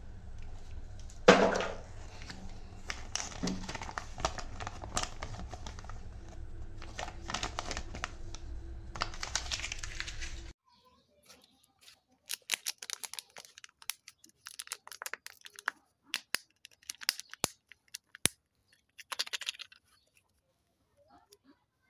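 Small plastic toy parts handled and clicked in the fingers over a steady low hum, with one sharp knock about a second in. After a cut about halfway through, the crinkly plastic wrapper of a Kinder Joy egg being handled and torn, in scattered sharp crackles and clicks.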